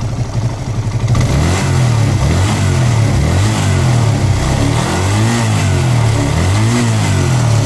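TVS Apache RTR 180's single-cylinder engine idling, then revved in a quick series of throttle blips, each rising and falling in pitch, from about a second in. It picks up smoothly with a new carburettor diaphragm fitted, without the earlier misfire and hesitation.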